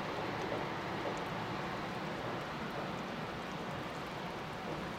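Steady rushing of a river over rocky rapids, with the distant rumble of KiHa 185 diesel railcars crossing a steel truss bridge.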